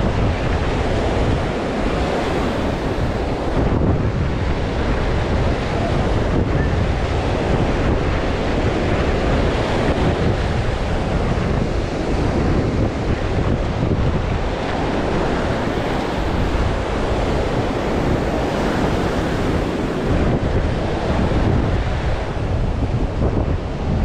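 Steady surf washing on a sandy beach, mixed with wind buffeting the microphone, which makes a heavy low rumble.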